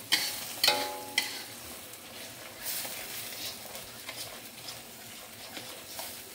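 Spatula stirring and scraping spice paste that is frying in a steel wok, with a soft sizzle. There are a few sharp knocks against the pan in the first second or so, one of which rings briefly, then lighter scraping.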